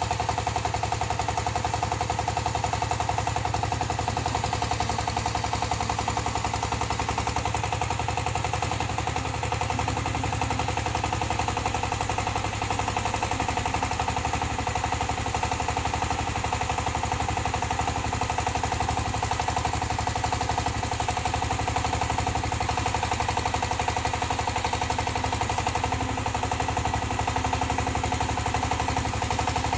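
Diesel engine of a mini crawler tractor running steadily with a rapid, even chugging beat while it drives the backhoe arm's hydraulics.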